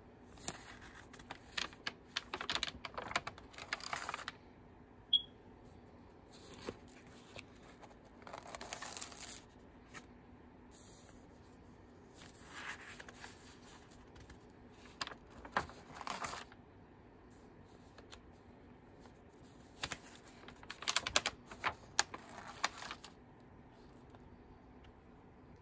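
Pages of a spiral-bound sketchbook being turned and smoothed flat by hand: bouts of paper rustling and crinkling with sharp little clicks, about five of them with quiet gaps between.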